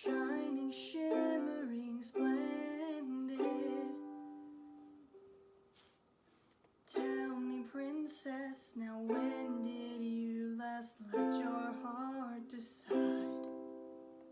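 Ukulele strummed one chord at a time, each chord left to ring out and fade. About four seconds in there is a pause of about three seconds before the strumming starts again.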